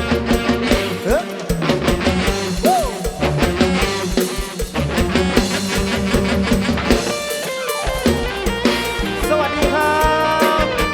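Live band playing the instrumental introduction of an Isan luk thung song: electric guitar lines over a drum kit keeping a steady beat.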